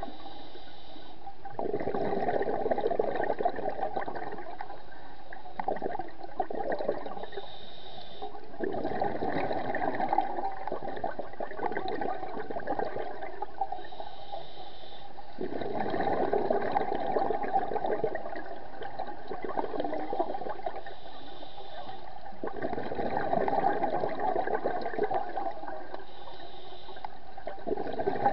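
Scuba regulator breathing underwater: a brief high hiss on each inhale, then a gurgling rush of exhaled bubbles lasting a few seconds. The cycle repeats about every seven seconds, four times, with a fifth exhale starting near the end.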